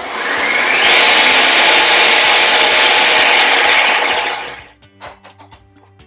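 Countertop blender running at high speed, grinding soaked peanuts with onion and water into a paste. Its motor whine climbs in pitch over the first second as it spins up, holds steady, then winds down and stops after about four and a half seconds. A few light clinks follow.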